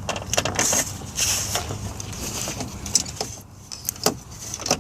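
Hands working the high-beam bulb out of the back of a Lexus GS headlight housing: a scatter of plastic clicks, taps and rattles with brief rustling.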